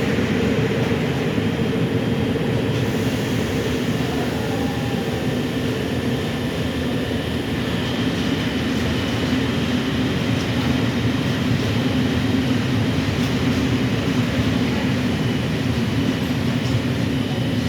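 Freight train of high-sided open goods wagons rolling past at steady speed: a continuous, even rumble of wheels on rail.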